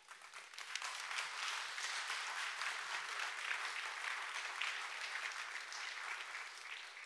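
Audience applauding: many hands clapping, building up about half a second in and dying away near the end.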